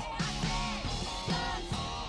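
Background music playing under the scene, with no dialogue.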